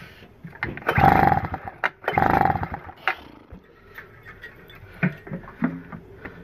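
Two pulls on the recoil starter of a Schneider 950 W generator, each a short whirring crank of the small engine, about a second apart. The engine does not catch.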